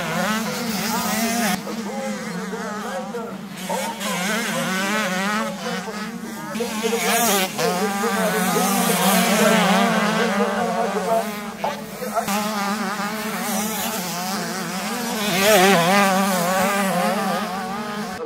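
85cc two-stroke motocross bikes racing, their engines revving up and down over and over as the riders work the throttle, with more than one bike heard at once. Loudest about nine and fifteen seconds in, as bikes pass close.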